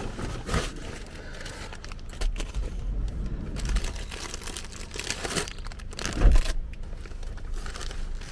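Plastic shopping bags rustling and crinkling in irregular bursts as groceries are handled, with a dull thump about six seconds in.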